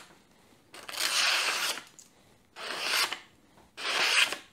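A chef's knife blade slicing down through a sheet of paper held in the air, in three separate rasping strokes about a second apart: a paper-cutting test of how sharp the edge is.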